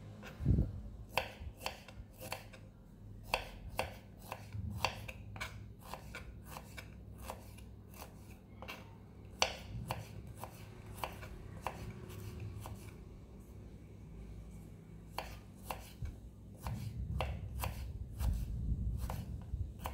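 Kitchen knife slicing peeled ginger thin on a wooden cutting board: a string of sharp, irregular knocks of the blade meeting the board, roughly two a second.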